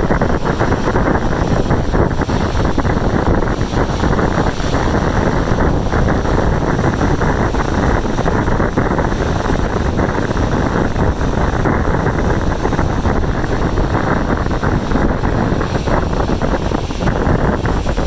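Strong wind buffeting the camera's microphone: loud, continuous wind noise that flutters in gusts without letting up.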